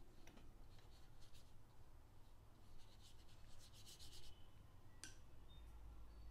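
Faint strokes of a fine paintbrush laying flesh-tone paint onto paper, over a low steady hum, with one sharp click about five seconds in.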